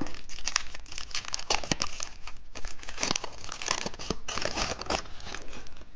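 Plastic candy wrapping being torn open and crinkled by hand, a dense run of irregular crackles and sharp rustles as the package of a rainbow lollipop is unwrapped.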